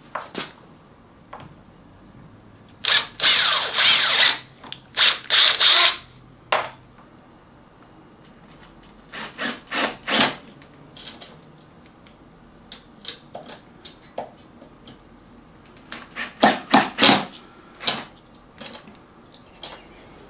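Ryobi cordless drill boring pilot holes into the wooden edge of a workbench in several bursts. The two longest runs come about three to six seconds in, the motor's pitch shifting as it speeds up and bites. Shorter bursts follow near ten seconds and near seventeen seconds.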